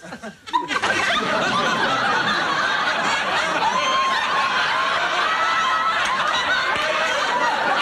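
Studio audience laughing, rising sharply about a second in and then carrying on at an even level.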